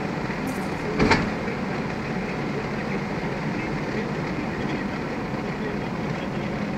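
Steady road and engine noise inside a car's cabin while driving at highway speed, with one sharp knock about a second in.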